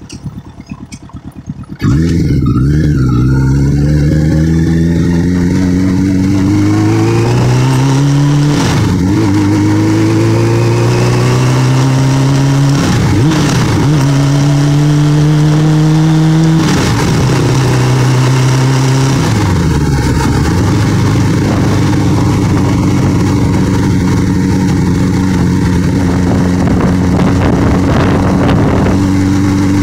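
Motorcycle engine pulling away. About two seconds in it gets suddenly louder, then it climbs in pitch and drops back roughly three times as the rider shifts up through the gears. After that it settles into a steady drone at cruising speed.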